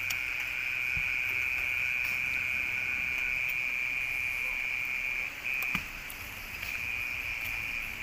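A steady, high-pitched chirring of insects such as crickets at night. A single sharp knock comes a little before six seconds in.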